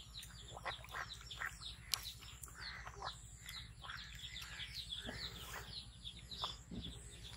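Busy high chirping of birds, many short falling chirps in quick succession, with a few lower duck calls mixed in and one sharp click about two seconds in.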